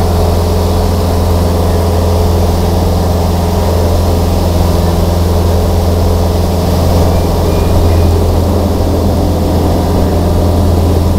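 Small aircraft's engine and propeller droning steadily in flight, heard inside the cabin: a loud, even drone with a strong deep hum that holds the same pitch throughout.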